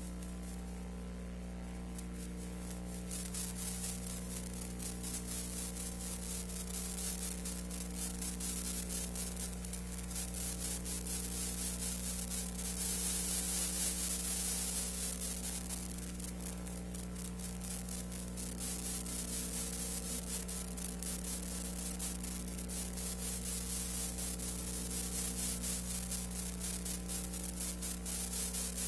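Steady electrical hum with hiss and dense fine crackle, and no sound from the filmed scene: the noise of an archival film or tape transfer. The hiss grows louder a few seconds in and is strongest about halfway through.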